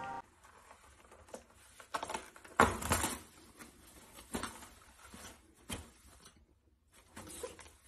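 Toilet paper rustling as a kitten bats and pulls at the hanging roll, with scattered light taps and scuffs and a louder rustling cluster about two and a half seconds in.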